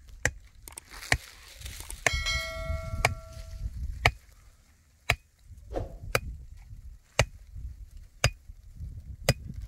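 Pickaxe blows driving a wooden stake into hard ground, sharp knocks about once a second. About two seconds in, one blow is followed by a brief metallic ring.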